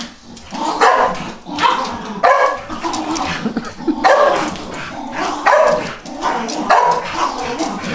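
A dog barking over and over, a dozen or so sharp barks at about one or two a second.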